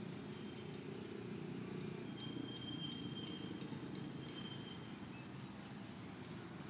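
Outdoor background sound: a low steady rumble, with faint high-pitched chirps from about two seconds in until past four seconds.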